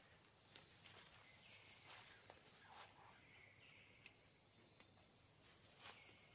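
Faint outdoor ambience: a steady high-pitched insect drone, with several short chirps that fall in pitch and a few soft clicks.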